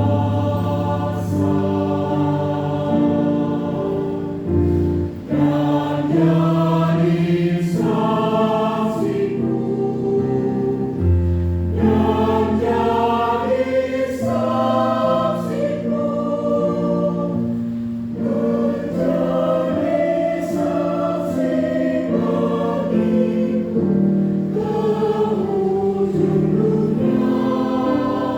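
A church choir singing a hymn in several parts, with sustained chords that change every second or so over a low accompaniment.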